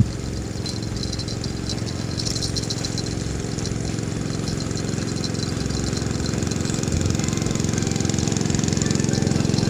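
A small engine running steadily with a rattle, slowly growing louder.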